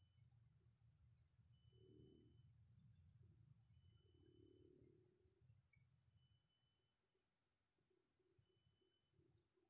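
Faint, steady high-pitched drone of insects in the surrounding vegetation, with a short high note repeating every second or two.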